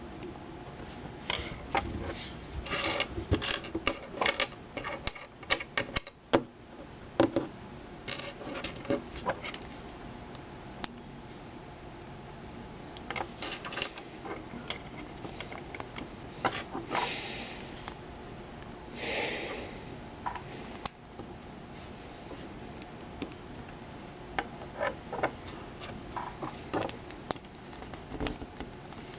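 Small plastic LEGO pieces clicking and clattering as they are handled and pressed together, in irregular clusters of sharp clicks with pauses between them. Two brief rustling sounds come a little past the middle.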